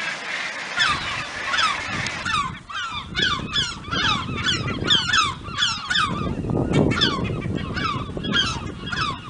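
Gulls calling: a fast run of harsh notes, each sliding down in pitch, about two or three a second, starting about a second in, over a low rumble.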